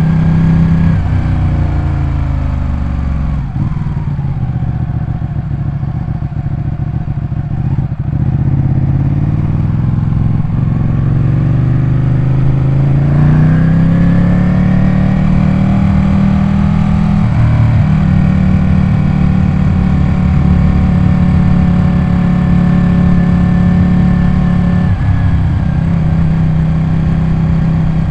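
Ducati 899 Panigale's L-twin engine running under way: its pitch falls over the first few seconds, stays low for several seconds, rises again about halfway through and then holds high, with two brief dips.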